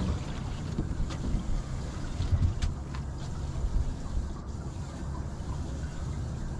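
Low, steady wind rumble on the microphone aboard a small fishing boat, with a few faint clicks.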